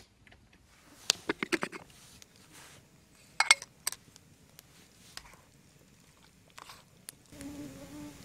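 Sharp clicks and scrapes of a metal utensil against camp cookware, in a few quick clusters as food is stirred and served. Near the end a steady low buzzing hum begins.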